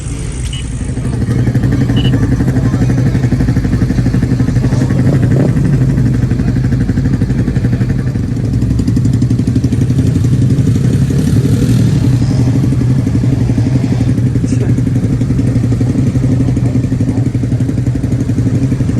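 A vehicle engine running with a steady low drone, getting louder about a second in and then holding at a constant pitch, like a car cruising.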